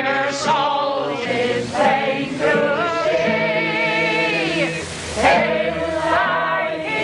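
A group of voices singing a folk song together, with long held notes; one held note slides down and fades about five seconds in before the singing picks up again.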